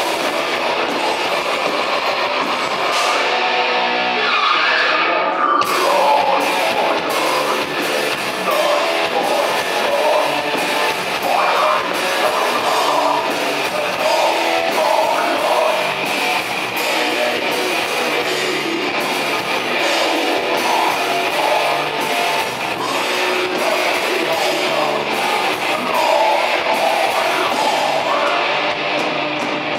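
Live heavy metal band playing loud: distorted electric guitar over a drum kit, with a falling pitch glide about four to five seconds in.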